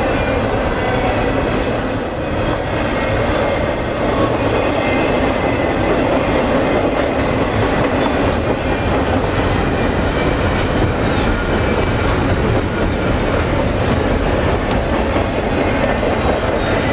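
Double-stack intermodal train's loaded well cars rolling past: a steady, loud rumble of steel wheels on the rails.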